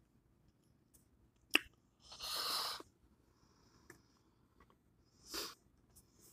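Close-up eating sounds of a person chewing food: a sharp wet smack about a second and a half in, then two breathy exhalations, one about two seconds in and one near the end.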